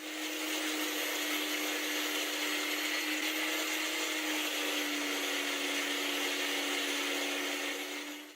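Small electric power tool motor running steadily: a high hum over a dense hiss, the pitch sagging slightly about five seconds in, as if under load.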